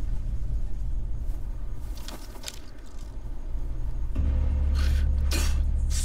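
Low steady rumbling drone of a tense standoff score, swelling louder about four seconds in, with a few short whooshes over it.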